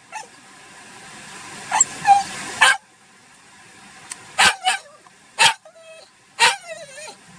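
Black Shiba Inu barking in short, sharp yips, about seven in all, with a thin whine between them near the end: demand barking for treats.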